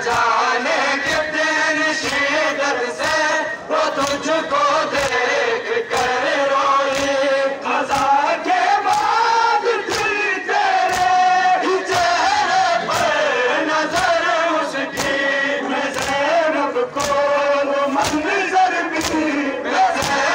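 A crowd of men chants a Balti mourning lament (noha) together while beating their chests in unison. The hand slaps come as sharp claps on a steady beat, about three every two seconds, under the sung chant.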